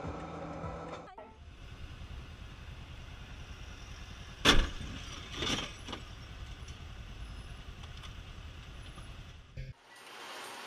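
Motorcycle engine running at low speed in traffic, with a sharp bang about four and a half seconds in and a smaller knock a second later.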